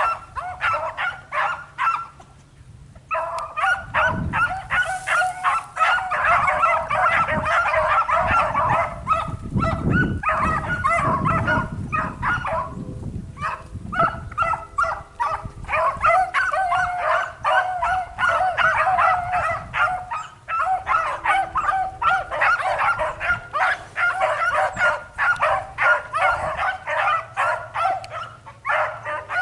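A pack of beagles baying in full cry on a rabbit's trail, many dogs yelping rapidly over one another. The voices break off briefly about two seconds in, then run on almost without a pause.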